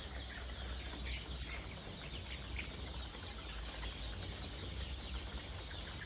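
A flock of young male chickens stirring in their coop: wings flapping now and then, with faint chirps and clucks over a steady low hum.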